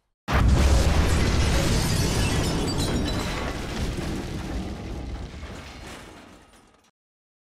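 Explosion sound effect: a sudden deep boom that rumbles and slowly dies away over about six seconds.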